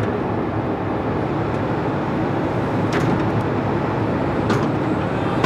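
Tracked log loader's diesel engine running steadily as its grapple swings and sets a log block onto a stack, with a couple of faint knocks.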